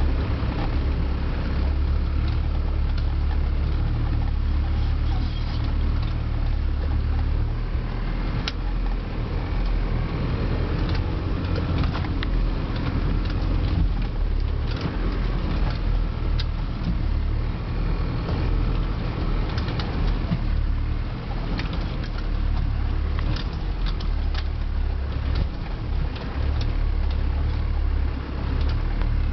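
Land Rover Defender 300 Tdi four-cylinder turbodiesel engine running steadily as it crawls over rocks, with scattered knocks and rattles from the vehicle.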